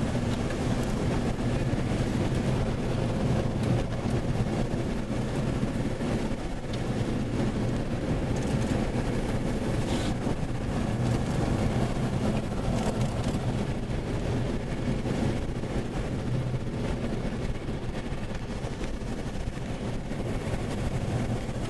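Steady road and engine rumble inside a moving vehicle's cabin.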